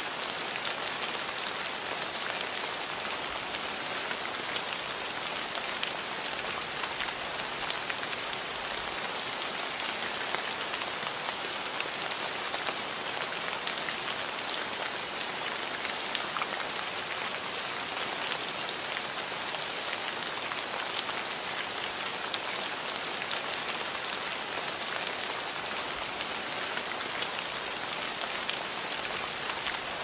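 Steady rain falling on a surface: a constant hiss of rain with many individual drop hits ticking through it.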